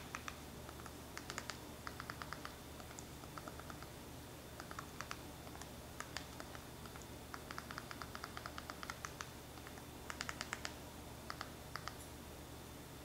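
Faint, quick runs of small plastic clicks from a TV remote's buttons, pressed several times a second to move across an on-screen keyboard and type a search.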